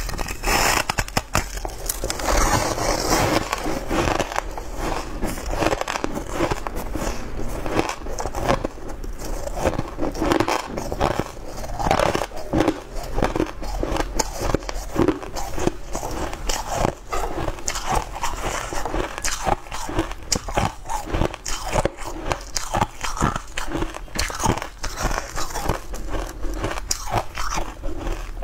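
Frozen sweet ice cake being bitten and chewed close to the microphone: a dense, irregular run of crisp crunches and crackles.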